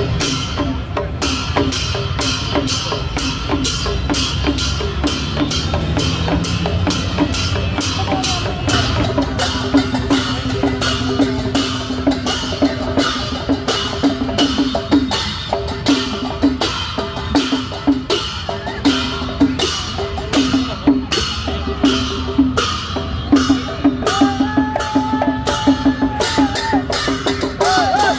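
Drum-led music with a fast, even beat of sharp strikes over a steady low note, and a wavering melody line joining near the end.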